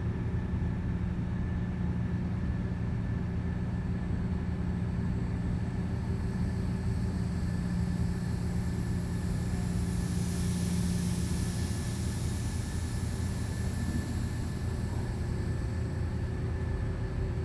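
Mobile crane's diesel engine running steadily with a low drone, as the crane is worked to stow its gear. Around the middle a hiss rises and then fades back.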